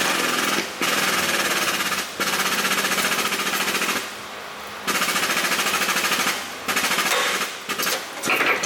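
Pneumatic air tool rattling on metal in about five bursts of one to two seconds each, with short pauses between them.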